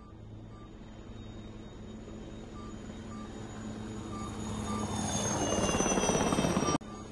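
Helicopter flyby sound effect: a fast rotor chop grows steadily louder as the helicopter approaches, with a high turbine whine falling in pitch as it passes. The sound cuts off abruptly near the end and jumps straight into another stretch of the recording.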